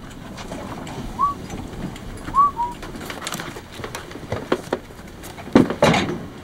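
Wire mail cart wheels squeaking briefly a few times as the cart is pushed, then thuds of packages tossed onto desks, the loudest near the end.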